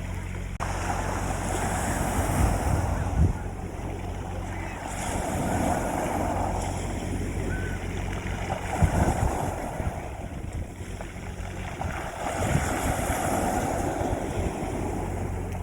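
Sea waves breaking and washing on a beach, swelling up and falling back about every three to four seconds, with wind buffeting the microphone. A steady low hum runs underneath.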